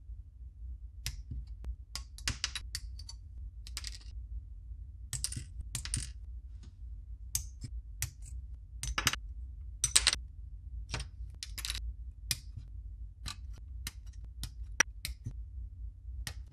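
Sprue cutters snipping white plastic model-kit parts off the sprue: a string of short, sharp clicks at irregular intervals over a steady low hum.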